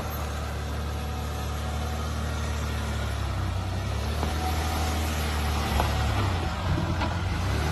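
Land Rover Discovery 4 engine running at low, steady revs under load as the SUV climbs a steep dirt slope and passes close by. A steady low hum that grows slightly louder as it nears.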